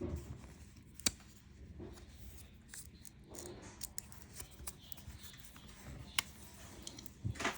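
Faint handling noises as a replacement battery is pressed down into an opened smartphone: soft scuffing with small scattered clicks and taps, two sharper clicks about a second in and about six seconds in.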